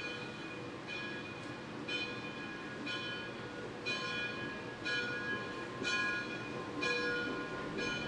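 Steam locomotive bell ringing steadily, about one stroke a second, as the 2-10-0 Decapod steam locomotive passes, over a low rumble from the train. The strokes grow louder from about the middle.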